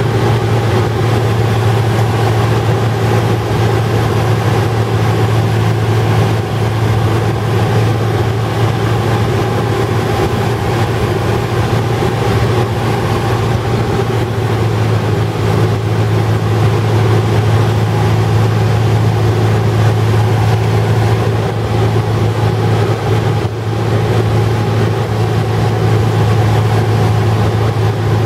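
Cessna 150's Continental O-200 four-cylinder engine and propeller droning steadily in flight, heard from inside the cockpit.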